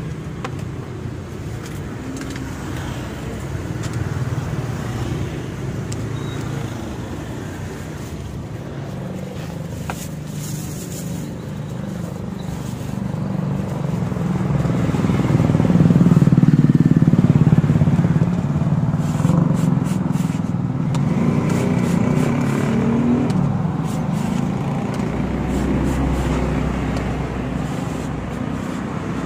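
Road traffic, mostly motorcycles and cars going past, heard as a continuous low rumble that swells loudest about halfway through. A few light clicks and scrapes come near the middle.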